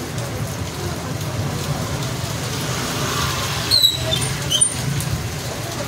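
Steady rain falling, with two brief high-pitched squeaks a little under a second apart near the end.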